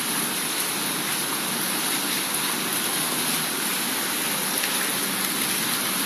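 Steady rain falling, an even hiss of rain on surfaces.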